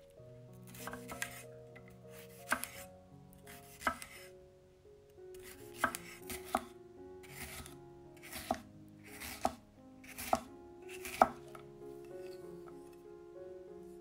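A chef's knife slicing a red bell pepper into strips on a wooden cutting board. Each cut is a crisp crunch through the pepper ending in a tap of the blade on the board, irregular and about one a second, stopping about eleven seconds in. Soft background music plays underneath.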